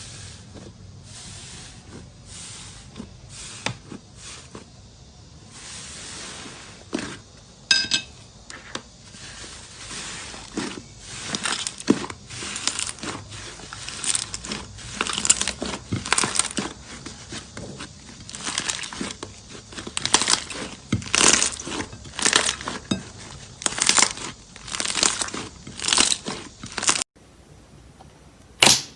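Slime being pressed and squeezed, making repeated crackling, crunchy pops about one or two a second, louder after about ten seconds. Near the end the sound cuts off suddenly, and two sharp clicks follow.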